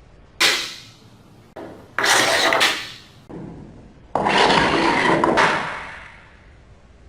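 Handling noise: a run of scraping and rubbing knocks in about five separate bursts, the two loudest each lasting close to a second before fading.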